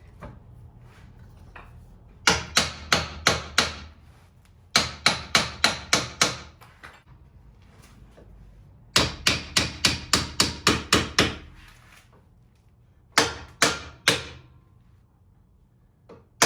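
Hammer blows driving a new lower control arm into its mount on a Chevrolet Cruze, in four quick runs of sharp, ringing strikes, about four a second, each run a few seconds apart.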